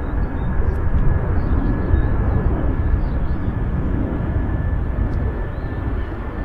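Jet airliner's engines: a deep, steady rumble that slowly fades.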